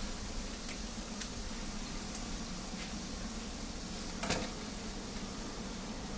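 Egg pancakes and a sausage sizzling on a flat-top griddle: a steady hiss with a few light clicks, and a louder knock about four seconds in.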